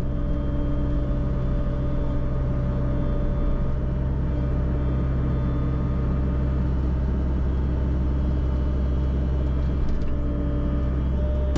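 CAT 304 mini excavator's diesel engine running steadily, heard from the operator's seat, with a steady whine over the low engine drone.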